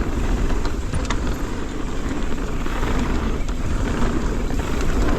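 Mountain bike, a 2024 Transition Sentinel, riding fast down a wet dirt trail: a steady rush of tyre noise and wind on the microphone, with a few light clicks and rattles from the bike.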